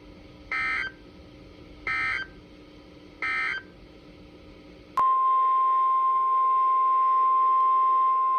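Three short warbling data bursts about a second and a half apart: the SAME end-of-message code of a NOAA Weather Radio alert, over a faint hum. About five seconds in, after a click, the louder, steady 1050 Hz NOAA Weather Radio warning alarm tone starts.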